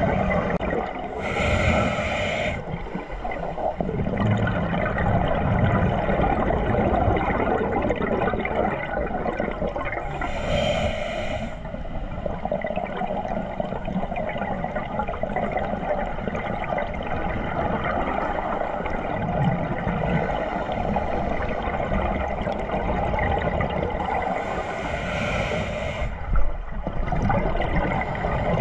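Scuba diver's exhalation bubbles burbling from the regulator three times, about ten to fifteen seconds apart, over a steady underwater rush, heard through a GoPro's waterproof housing.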